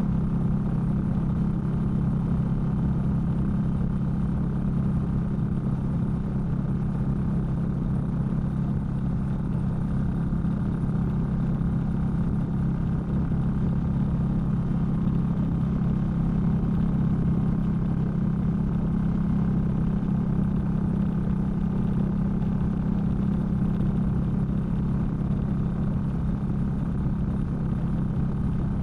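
Indian Scout V-twin motorcycle engine and exhaust running steadily while riding, picked up by a recorder muffled in a sock inside the saddlebag. The deep engine note holds even, with no revving or shifting.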